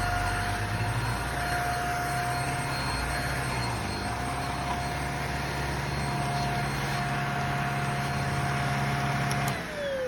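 JPHYLL Ultra-UVC-K16 handheld mattress vacuum running steadily with a high motor whine. About nine and a half seconds in it is switched off with a click, and the whine falls in pitch as the motor spins down.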